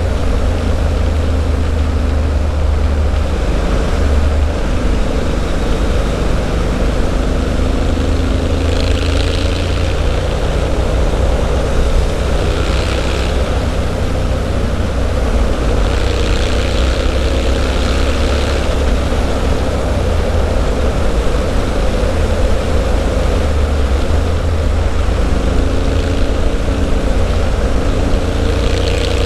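Triumph Street Scrambler 900's parallel-twin engine running through its Zard aftermarket exhaust while riding, the revs rising and falling through the corners over a heavy low rush of wind on the bike-mounted microphone.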